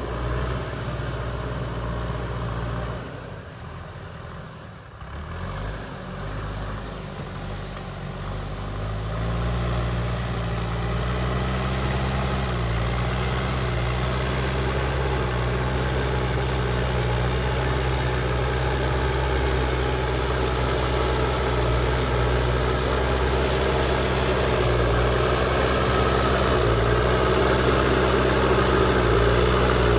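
JCB backhoe loader's diesel engine running. It dips quieter for a few seconds near the start, then picks up in pitch and runs on steadily.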